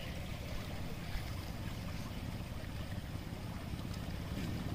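Wind buffeting the microphone: a steady, fluttering low rumble with a faint outdoor hiss above it, and one small tap about a second in.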